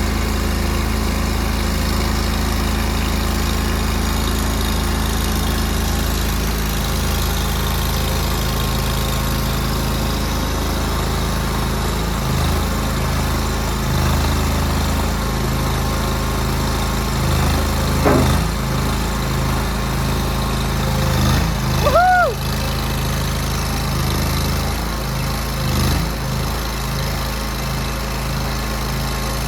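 Nuoman mini skid steer's small petrol engine running, its note shifting under load as the hydraulics work the loader arms to raise the bucket. A few clunks and one short high squeak come about three-quarters of the way through.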